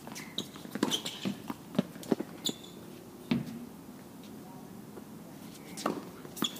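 Tennis balls being struck by rackets and bouncing on the court, a string of sharp pops with a pause in the middle, plus a few short shoe squeaks.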